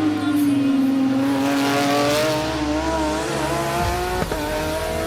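Rally car engine held at high revs. Its pitch sags a little and then climbs again, with a sharp crack about four seconds in.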